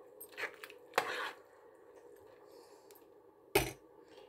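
A spoon stirring rice and water in a rice cooker's metal pot: a few short swishes in the first second and a half, then a single sharp knock a little after three and a half seconds. A faint steady hum lies underneath.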